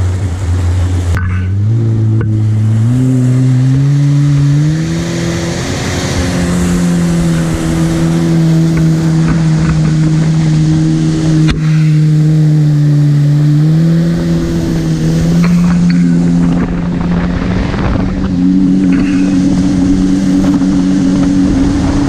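Kawasaki STX-15F jet ski's four-stroke engine running under way, its pitch climbing in steps over the first five seconds as the throttle is opened, then holding steady. About fourteen seconds in it drops briefly and rises again.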